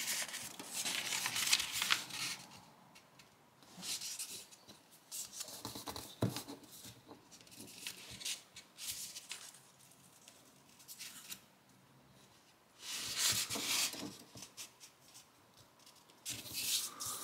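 Sheet of origami paper being folded in half into a triangle and creased by hand: crisp rustling and scraping in several bursts with quiet stretches between, and a single light tap about six seconds in.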